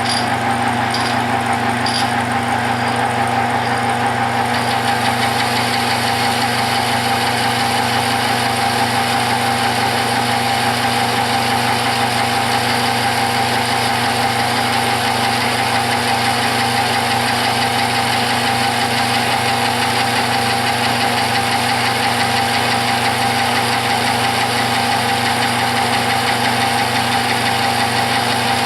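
Metal lathe running steadily with its motor and gearing humming while it takes a light cut of about five thousandths. Short high ticks come about once a second for the first few seconds.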